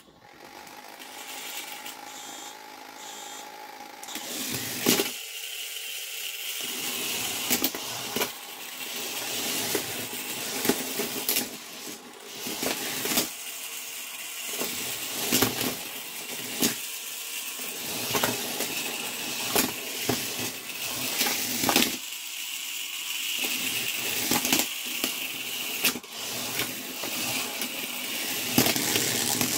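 Small electric drive motors of Hexbug BattleBots toy robots whirring as they drive and turn, with frequent sharp plastic clacks and knocks as the robots hit each other and the arena's wooden walls. The whirring gets louder about four seconds in.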